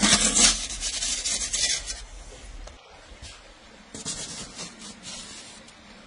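A perforated metal pizza peel scraping. The first, louder bout lasts about two seconds as the peel slides over the brick oven floor. A second bout comes about four seconds in, as the peel scrapes across a wooden table while a baked loaf is slid off it.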